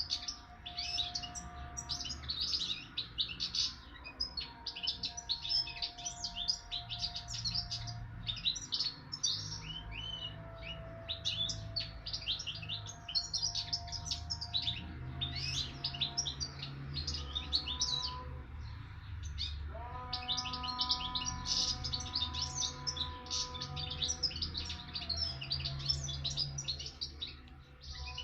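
Young caged songbird, about eight months old and raised hearing only its parents' song, singing a continuous run of rapid high twittering notes.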